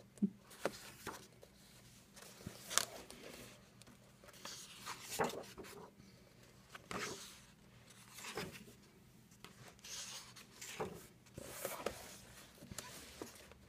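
Heavyweight paper pages of a coloring book being turned by hand, a soft rustle or swish every second or two.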